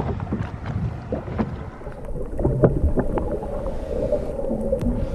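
Water slapping against a small anchored boat, with wind buffeting the microphone and scattered knocks. About two seconds in the sound turns muffled as the camera goes under the water.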